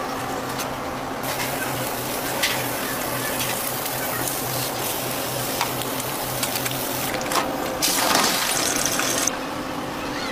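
Commercial kitchen sounds: a steady low hum under hissing sizzle of food frying in a pan, loudest for about a second and a half near the end, with a few light clicks of utensils.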